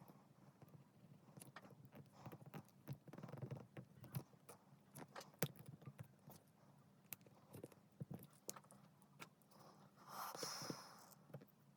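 Faint scattered clicks and taps of small plastic and metal parts being handled while lead sheet is fitted into Topre keycaps, with a short scratchy rustle about ten seconds in.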